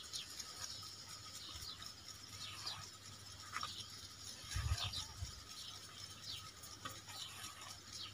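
Hands kneading cow dung into cow urine in a metal basin, a soft wet rubbing and squelching, with small birds chirping in the background. A dull thump a little past halfway.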